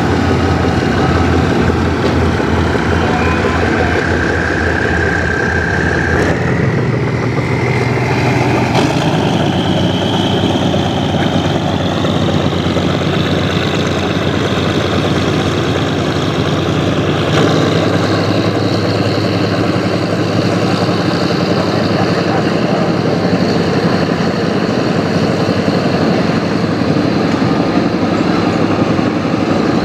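Diesel train engine running loud and steady, with a whine that climbs in pitch from about six to twelve seconds in and then holds.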